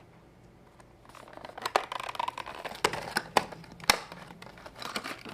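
Plastic blister packaging of a die-cast toy car being handled, crinkling with a string of sharp clicks and crackles that start about a second in.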